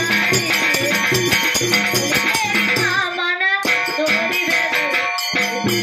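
Live Kannada folk band playing an instrumental passage: a harmonium melody over a steady hand-drum beat with rattle-like percussion. The beat stops briefly about three and a half seconds in, then resumes.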